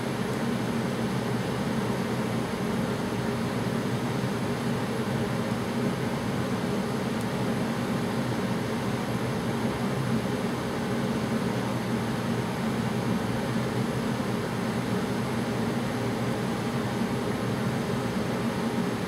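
A room heater running, giving a steady, even noise with a low hum underneath.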